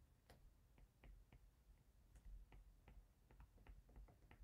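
Faint, irregular ticks of a stylus tip tapping and sliding on a tablet's glass screen while words are handwritten, several a second.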